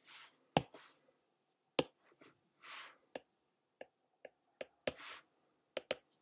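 Stylus tapping and writing on a tablet's glass screen: about nine sharp clicks, coming closer together in the second half, with a few short, soft hissing sounds between them.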